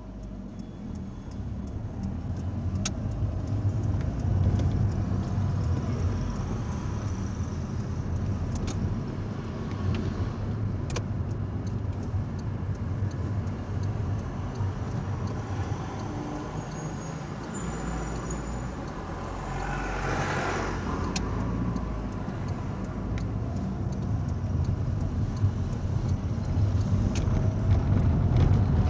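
Car driving at town speed, heard from inside the cabin: a steady low engine and tyre rumble that grows louder over the first few seconds as the car gets moving. A brief louder rushing swell comes about twenty seconds in.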